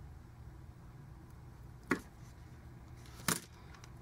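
Two sharp snips of scissors cutting a flattened piece of 25-pound monofilament to a point, about a second and a half apart, the second a little longer. A faint low hum sits underneath.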